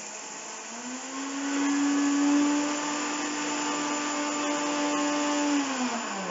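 Electric mixer grinder with a steel jar grinding sugar into powder. The motor speeds up about a second in, runs steadily, and near the end is switched off, its hum falling in pitch as it spins down.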